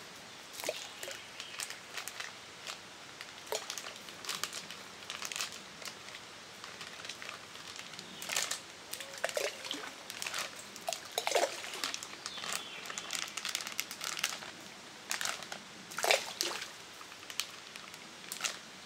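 A plastic bag of catfish bait crinkling as it is handled, in irregular short crackles and clicks.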